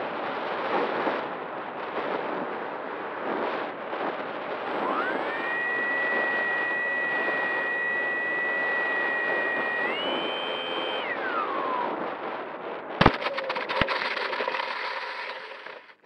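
Onboard sound of an RC Spitfire model coming in to land, with steady wind rush over the microphone. About five seconds in its electric motor whines up, steps higher near ten seconds, then winds down. About thirteen seconds in a sharp thump marks the touchdown, followed by rattling and scraping as the model skids along the dirt until the sound cuts off.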